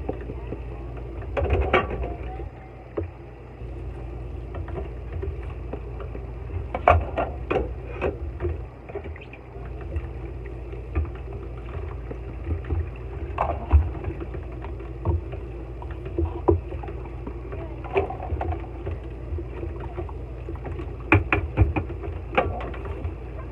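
Tap water running steadily from a kitchen faucet into a sink while dishes are rinsed, with scattered knocks and clatters of bowls and containers being handled and set down.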